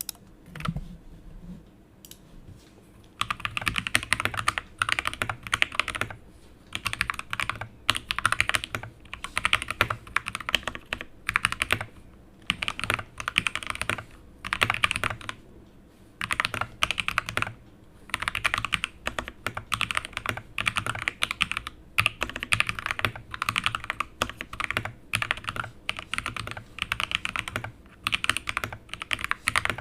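Typing on a Tecware Phantom mechanical keyboard fitted with lubed Gateron Yellow linear switches. After a few scattered presses, fast runs of keystrokes start about three seconds in and come in bursts of a second or two with short pauses between.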